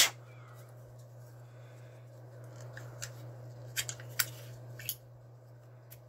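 A sharp knock at the start, then a few light clicks and taps as a black Zippo lighter and its clip-on holder are handled and the lighter's hinged lid is flipped open. A steady low hum runs underneath.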